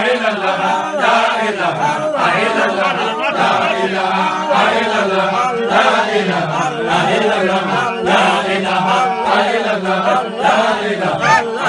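Group of men chanting together without pause, an Islamic devotional recitation of dhikr and prayer, many voices overlapping.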